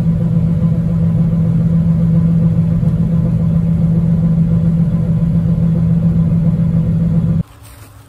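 Combine running while its unloading auger spouts oats into a grain trailer, heard from inside the cab: a loud, steady mechanical drone with a strong low hum. It cuts off abruptly about seven seconds in, leaving a much quieter background.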